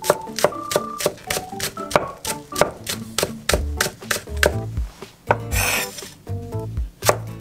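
Cleaver chopping green onion on an end-grain wooden cutting board: quick, even knocks of the blade on the wood, about four a second, over background music. About five and a half seconds in, a brief scrape as the blade sweeps the chopped onion aside.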